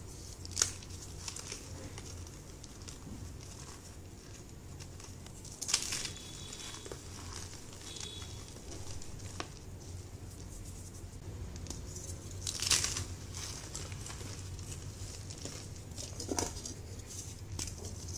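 Pieces of reformed gym chalk crushed and crumbled by hand into loose chalk powder: crunchy, gritty crumbling, with about four louder crunches as chunks break apart.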